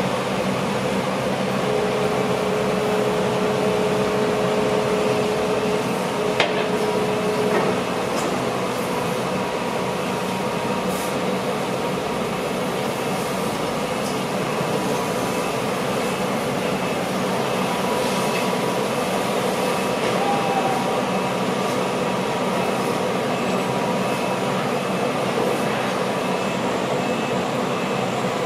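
Hydraulic earth drill rig running steadily, its diesel engine and hydraulics making a continuous mechanical drone while the drilling bucket works the bore hole. A steady whine sounds through the first seven seconds or so, with a sharp click about six seconds in.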